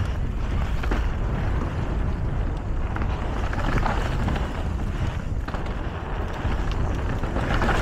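Mountain bike riding fast down a dirt trail: steady tyre and trail noise with the bike rattling over the ground, a heavy low rumble of wind and a few short knocks from bumps.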